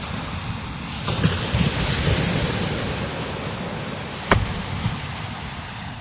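Strong desert wind gusting over sand dunes, buffeting the microphone with a low rumble; a gust swells about a second in and slowly eases. A sharp pop about four seconds in.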